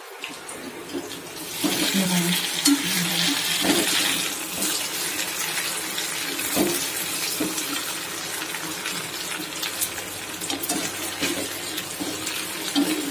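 Taro root slices sizzling in hot oil in a metal kadai as they are turned over with a metal slotted spatula, with clicks and scrapes of the spatula against the pan. The sizzle swells about a second and a half in as the pieces are stirred.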